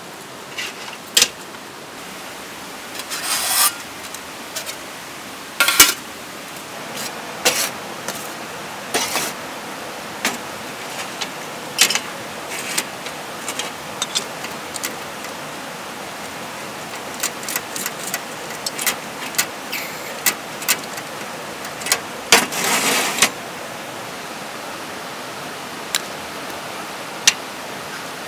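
Camp cooking gear being handled: scattered sharp clicks and knocks of a stove canister and pots, with two longer scraping rubs, one about three seconds in and one near the end. Under it runs the steady rush of a creek's rapids.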